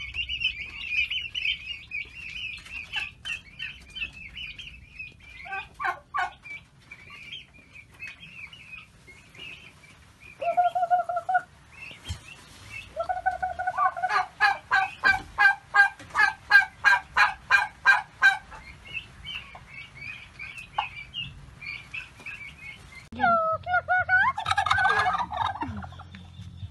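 Young fowl peeping in the first several seconds, then domestic turkey gobbling: a short call about ten seconds in, a long fast run of pulsing calls from about thirteen to eighteen seconds, and another gobble near the end.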